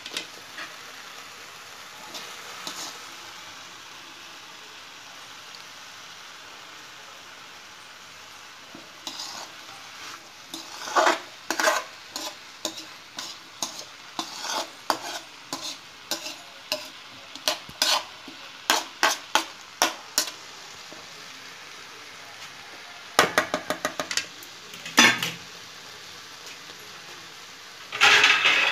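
Sliced ivy gourd sizzling as it stir-fries in an aluminium kadai, stirred with repeated scrapes and clicks against the pan through the middle and again near the end.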